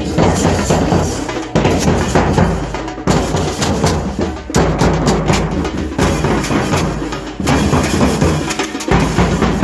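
Music with drums and percussion.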